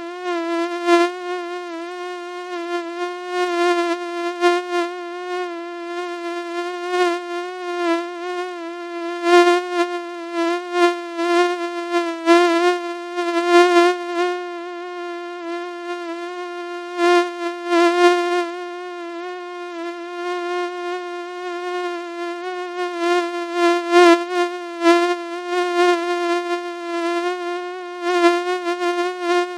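Mosquito buzz sound effect: a continuous high, whining hum with many overtones, wavering slightly in pitch and swelling and fading in loudness every second or so.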